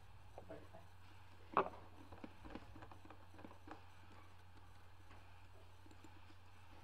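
A few faint clicks and taps, with one sharper click about a second and a half in, over a steady low electrical hum.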